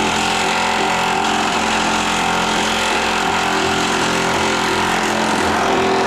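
Impact wrench hammering continuously as it drives a nut or bolt on the suspension, then stopping at the end. The fastener is forced hard enough that, by the crew's account, it cut a new thread.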